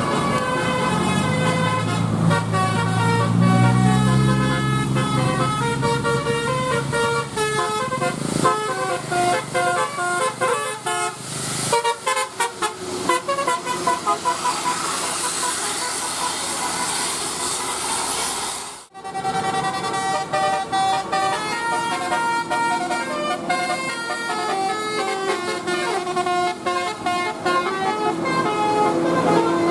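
Bus 'telolet' Basuri musical air horn playing a quick melodic tune, note after note. A bus engine revs up under it in the first few seconds. The horn breaks off about two-thirds of the way through, and another horn tune starts.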